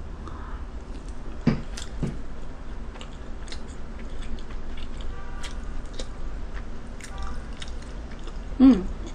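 Close-miked chewing of a mouthful of rice in black-bean sauce: soft wet mouth clicks and smacks, with a sharper click about a second and a half in. Near the end, a brief vocal sound is the loudest moment.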